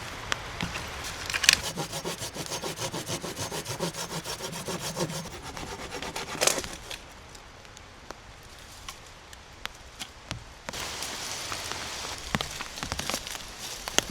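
Hand saw cutting through wood in quick, even back-and-forth strokes, about three or four a second, stopping about six and a half seconds in. A steady hiss with a few sharp knocks comes in near the end.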